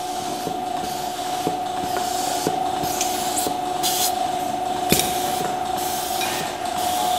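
Milking-parlor vacuum system running: a steady hiss of air drawn through the milking clusters under a steady whine, with pulsators clicking about once a second.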